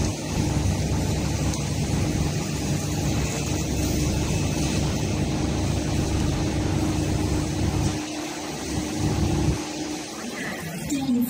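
Steady low mechanical rumble and hum with a hiss above it. The deepest part drops away about eight seconds in.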